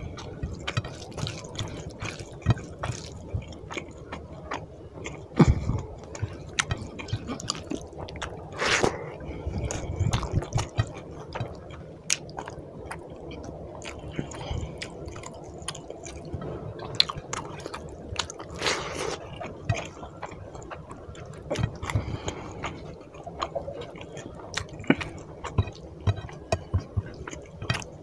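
Wet squelching of fingers kneading rice into curry gravy on a plate, with chewing and lip smacks, a series of irregular small wet clicks throughout.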